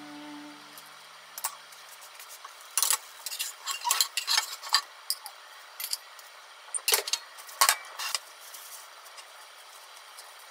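Metal slotted spatula scraping and tapping in a nonstick frying pan while food is served out of it, with utensils clicking against plates: an irregular run of sharp clicks and scrapes, busiest through the middle.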